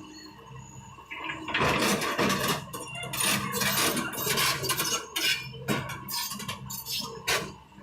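Irregular clattering and clanking of hard objects, many sharp knocks in quick succession, beginning about a second and a half in, over a steady low hum.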